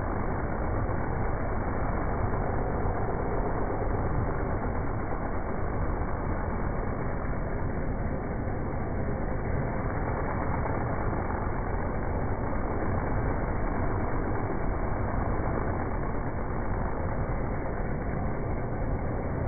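Stump grinder running under load, its cutting wheel grinding into a tree stump and throwing wood chips: a steady, unbroken engine and grinding noise.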